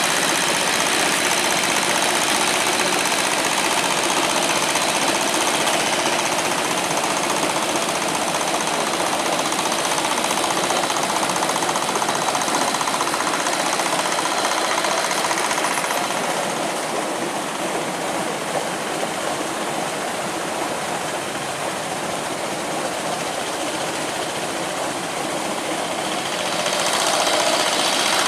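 Two-wheel hand tractor's single-cylinder diesel engine running steadily under load as it works a flooded rice paddy, with a rapid knocking beat. It grows a little fainter about halfway through and louder again near the end.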